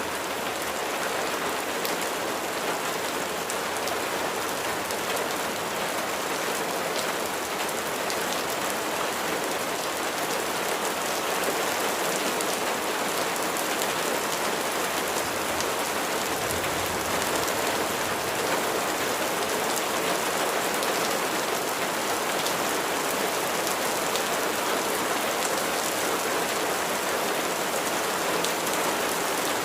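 Steady rain falling, an even hiss of water with individual drops heard as light ticks through it.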